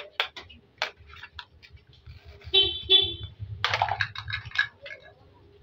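Small plastic toy pieces clicking and tapping against each other, irregularly, with two short pitched toots about halfway through.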